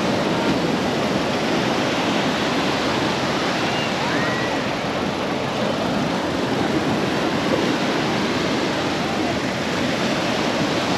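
Ocean surf washing onto a sandy beach: a steady, even rushing of breaking waves.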